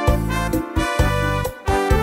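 Instrumental background music with a regular bass line and notes changing several times a second.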